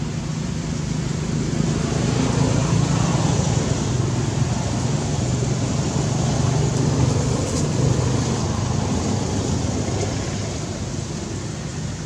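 Low engine hum of a road vehicle nearby, growing louder about two seconds in and fading again near the end.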